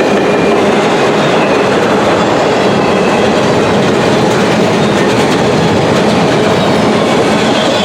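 Freight cars rolling past at about 45 mph: a loud, steady rush of steel wheels on rail with no letup.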